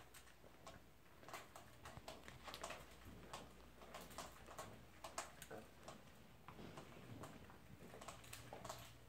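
Near silence in a small room: faint, irregular clicks and taps, several a second, over a steady low hum.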